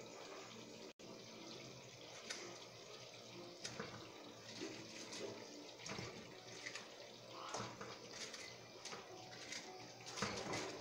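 Buffalo sauce simmering and bubbling in a wok. From about two seconds in, tongs knock against the pan several times as fried chicken pieces are turned into the sauce.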